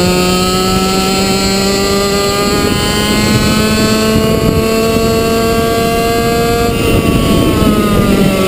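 Two-stroke racing kart engine running hard, heard close up from on board. Its revs climb slowly along the straight, then about seven seconds in the note breaks up and the revs fall.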